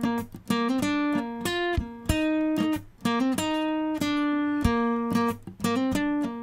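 Background music: an acoustic guitar picking a melody, one sharply plucked, ringing note after another.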